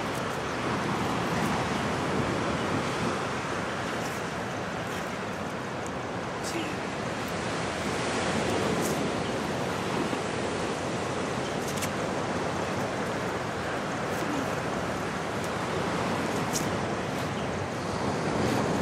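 Steady wash of ocean surf, slowly swelling and easing, with a few faint clicks.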